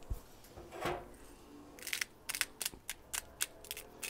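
A handheld peppercorn grinder being twisted, grinding mixed peppercorns in an irregular run of short, dry clicks, about three or four a second, that starts about two seconds in. A single soft knock comes about a second in.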